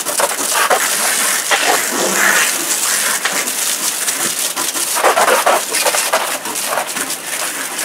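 Water from a pistol-grip garden hose nozzle spraying onto a mountain bike's frame and wheels and the wet wooden deck beneath. It makes a loud, steady hiss with spatter and cuts off suddenly near the end.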